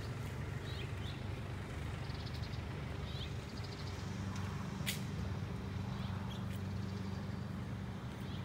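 Street ambience: a steady low hum, likely traffic or an engine, with a bird giving two short, high trilled chirps a couple of seconds in. A single sharp click comes about five seconds in.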